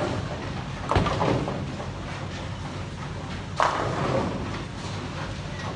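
Bowling pins crashing as balls hit them on the lanes: two crashes, about a second in and again past the middle, each clattering off over a second, over the low steady rumble of balls rolling on the lanes.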